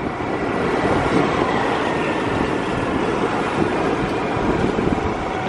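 Steady engine, tyre and wind noise heard from aboard a moving vehicle on a wet road.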